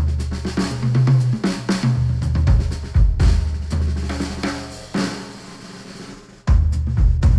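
Instrumental music with a full drum kit (snare, bass drum, hi-hat, cymbals) and bass, played through headphones and picked up by microphones. About five seconds in it drops to a quieter break, and the full beat comes back in about a second and a half later.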